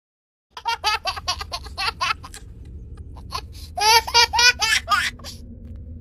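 Baby laughing in two bouts of quick giggles, with a low steady hum underneath.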